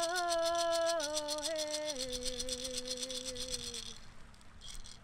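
Closing music: a held melodic line that steps down in pitch twice, over a fast, even shaken rattle. Both fade out near the end.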